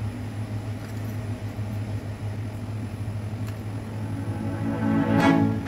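Steady low mechanical hum, with faint background music with bowed strings coming in about five seconds in.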